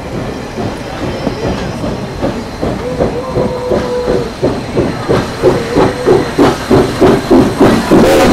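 Soo Line 1003, a 2-8-2 Mikado steam locomotive, working close by with a steady beat of exhaust chuffs about two to three a second over the hiss of steam, the beats growing louder toward the end as it nears.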